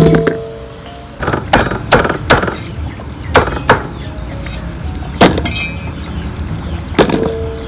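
Cooking utensils knocking and clinking: about ten sharp strikes at irregular intervals, one near the end leaving a short metallic ring.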